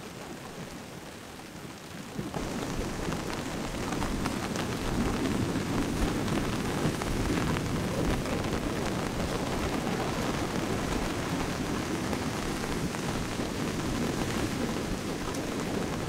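Heavy rain pattering down steadily with a low rumble underneath, growing louder about two seconds in.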